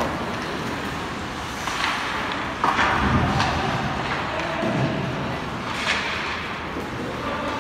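Ice hockey game sounds in an indoor rink: a few sharp clacks from sticks and puck over steady rink noise.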